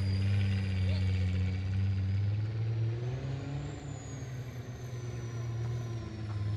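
A vehicle engine running steadily at low revs, its pitch shifting slightly about three seconds in.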